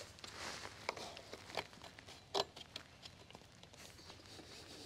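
Faint, scattered clicks and rustling as a ribbed serpentine drive belt is worked by hand over the engine's pulleys.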